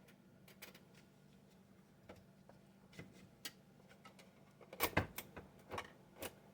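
Scattered clicks and knocks of fare box parts being handled and fitted together as the tower goes on, with the loudest knocks in a quick cluster about five seconds in.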